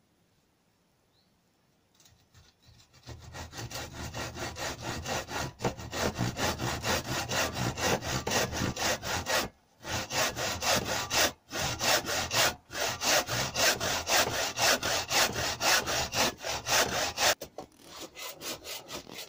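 Hand saw cutting through a wooden board in quick, even back-and-forth strokes. It starts after a few seconds of quiet, pauses briefly a few times, and stops shortly before the end.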